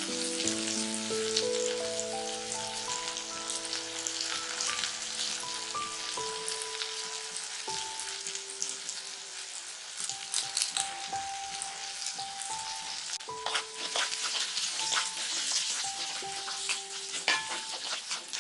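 Small onions, garlic cloves and dals sizzling and crackling in hot gingelly oil, with a wooden spatula stirring them near the end. A slow melody of soft background music plays throughout.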